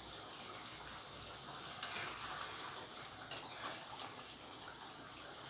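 Chicken roast in its gravy cooking in a pan with a little ghee added, giving a faint, steady sizzle. A couple of light clicks come about two seconds in and again a little past three seconds.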